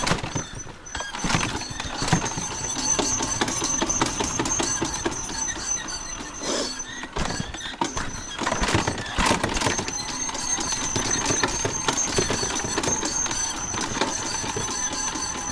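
A vehicle's strange noise: a dense, continuous rattling and knocking with a thin, steady high squeal over it. The owner cannot yet find the cause.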